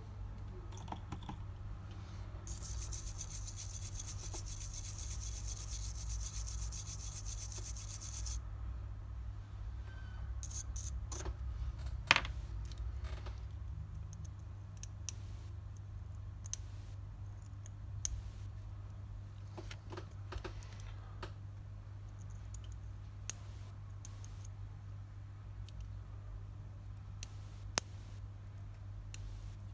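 Scattered light clicks and scrapes of small tools being handled on a repair workbench, over a steady low electrical hum. A few seconds in, a hiss starts and runs for about six seconds before stopping abruptly.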